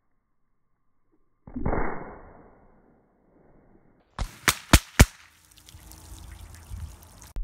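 A single shot from a Marlin 795 .22 Long Rifle rifle about a second and a half in, fading over about a second. Near the middle come four sharp cracks in quick succession, then a hiss of water gushing and splashing from the holed jug that stops abruptly near the end.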